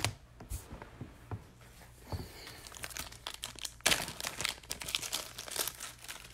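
Crinkling and rustling of plastic being handled, with scattered light clicks. The rustling thickens about two seconds in and is loudest in a burst partway through.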